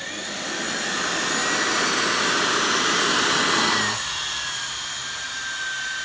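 Hand-held 3D-printed electric ducted fan, driven by a 1700 kV brushless motor, running: a steady high whine over rushing air. It is loudest in the middle, then is throttled back about four seconds in, the whine sagging slightly in pitch.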